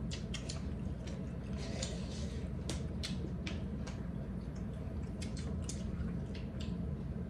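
Eating sounds from a meal of rice and chicken soup: irregular small clicks and wet, squishy noises of food being chewed and handled.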